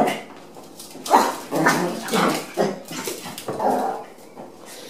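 Small dogs, Chihuahuas at play, barking in a quick run of about six short barks that start about a second in and stop near four seconds, with one bark right at the start.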